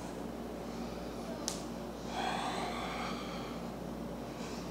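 A person breathing while holding a yoga pose: a short sharp sniff about a second and a half in, then a soft, longer breath out about two seconds in. A steady low hum runs underneath.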